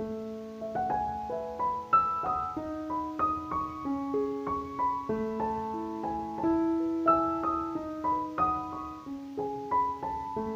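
Background piano music: a gentle melody of struck notes over sustained lower notes.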